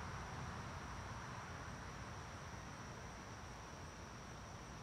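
Crickets chirring in a steady, unbroken high chorus over a faint hiss and low rumble of outdoor background noise.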